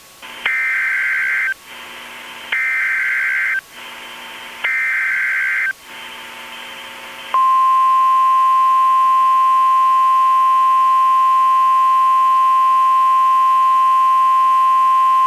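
Emergency Alert System tones: three loud header data bursts of about a second each, a second apart, followed from about seven seconds in by a steady single-pitch attention tone held until the alert message begins.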